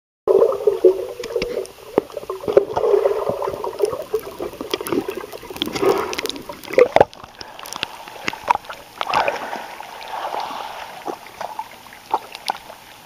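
Pool water heard from under the surface: muffled bubbling and sloshing, with many small clicks and knocks as a swimmer moves through the water.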